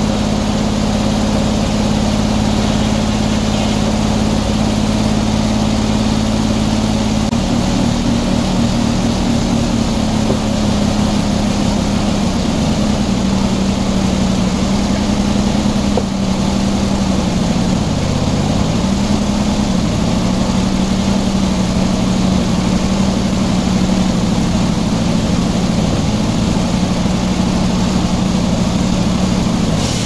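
Circular sawmill's engine running steadily, then dropping in pitch about seven seconds in as the blade takes a cut. It sags further for a moment around the middle and stays pulled down under load until near the end, over the steady noise of the mill.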